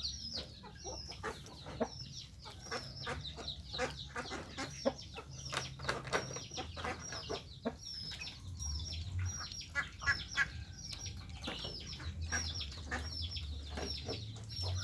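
A mongoose eating mango, its chewing giving many short wet clicks and smacks, with quick, high, repeated chirping from a bird close by.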